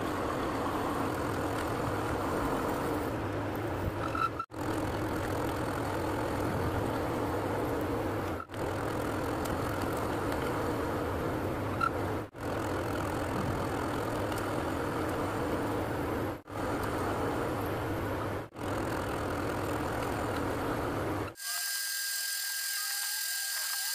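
Manual metal lathe running under cut: a steady motor and gear hum as the tool turns chips off the spinning workpiece, broken by brief dropouts every few seconds. Near the end the sound switches to a thin, high-pitched whine over hiss.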